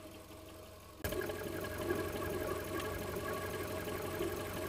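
Volkswagen Golf engine idling steadily, heard close up in the open engine bay; the sound starts abruptly about a second in.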